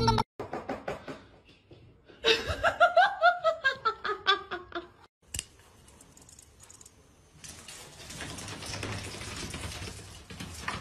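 A person laughing in a run of quick pulses that fall in pitch, lasting about two and a half seconds, after a few light taps. A steady faint hiss follows near the end.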